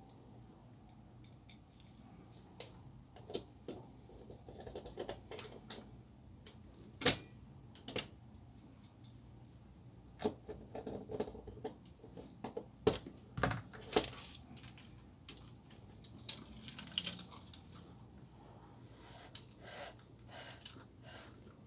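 Irregular clicks and light knocks of a laser-printer fuser assembly's plastic housing and parts being handled, with a screwdriver being used on it. The clicks are busiest about halfway through.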